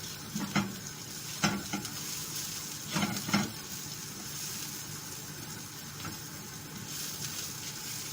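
Finely chopped onion sizzling steadily in a frying pan in the meat's own pan juices, with no oil added. A utensil stirring it knocks and scrapes against the pan five times in the first three and a half seconds.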